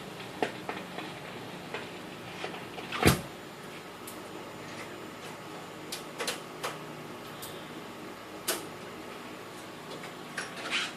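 Seeberg 100R jukebox mechanism cycling between records. It makes a series of mechanical clicks and knocks over a steady hum, with one louder clunk about three seconds in.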